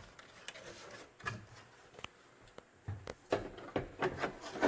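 Handling noise from the RC truck and its small parts and tools: a scatter of light clicks, taps and rubs, more of them in the second half.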